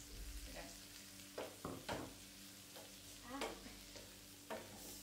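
Wooden spatula stirring a sauce in a nonstick frying pan over a gas flame: a soft sizzle with about six short, irregular scrapes and knocks of the spatula against the pan. A steady low hum sits underneath.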